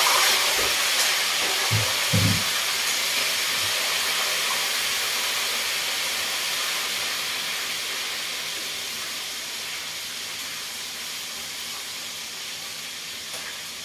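Prawns sizzling in hot oil in a pan on the stove, a steady hiss that slowly dies down, with a few soft knocks in the first couple of seconds.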